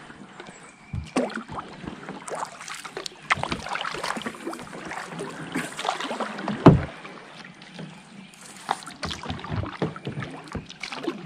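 Kayak paddling: the double-bladed paddle dipping and splashing in the water stroke after stroke, with scattered short knocks and one louder thump about two-thirds of the way in.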